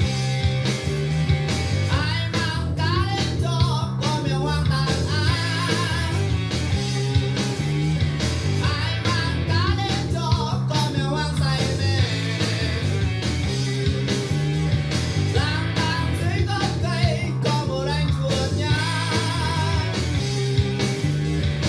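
Music played through Edifier S1000MKII bookshelf speakers for a sound test: a steady bass line, drum hits and a wavering lead melody that comes in phrases.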